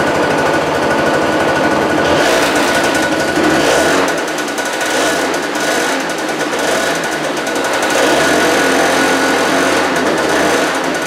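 Small scooter engine running, with its exhaust just refitted on a homemade gasket. A fast, rattly beat shifts in pitch as the throttle is opened and eased off a few times.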